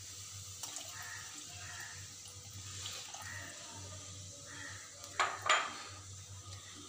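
Water poured from a bowl into a metal pan of masala paste, with two louder clatters about five seconds in.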